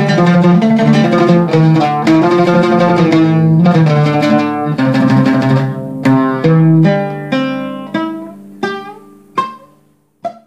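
Oud played solo: a flowing melody of quick plucked notes that, about six seconds in, thins into single notes spaced further apart, each left to ring and die away, fading out to a last note near the end.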